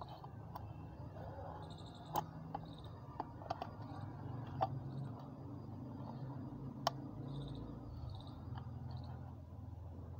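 Steel scissors cutting a thick plastic bottle: a few sharp, irregular snips and clicks, the loudest about two seconds in and again near seven seconds, over a steady low hum with faint high chirps.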